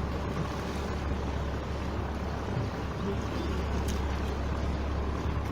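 Glass-bottom tour boat's engine running steadily, heard aboard as an even low rumble.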